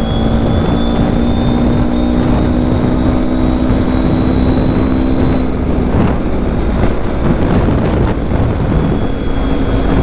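Kawasaki KFX 700 V-Force quad's V-twin engine running at a steady cruise, its pitch creeping up slightly and then easing off about five or six seconds in.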